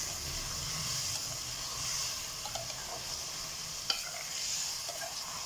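Chicken frying in a masala of oil, yogurt and spices, sizzling steadily while a spoon stirs and scrapes the pot, with a sharp clink of the spoon against the pot about four seconds in. The chicken is being browned (bhuna) until the water cooks off and the oil rises.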